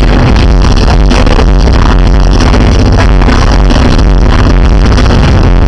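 Live pop concert music from the arena sound system, with a heavy electronic beat and strong bass, very loud and pinned near the top of the recording's range throughout.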